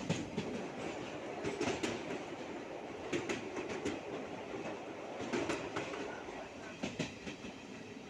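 Train running along the track, heard from inside a coach: a steady rumble with groups of wheel clicks over the rail joints every second and a half or so.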